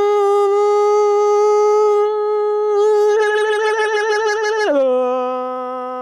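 A young man's voice holds one long sung note, which starts to waver with a wide vibrato about three seconds in, then drops to a lower held note near the five-second mark.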